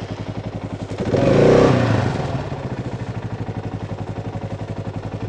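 Kawasaki KLR650's single-cylinder engine running just after being started: it revs up about a second in, then settles back to an idle with a steady, even beat.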